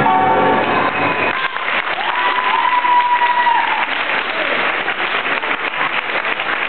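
The last notes of the tango music fade out and the audience applauds, the clapping starting about a second in and running on, with a held high tone, like a whistle, for a second or two in the middle.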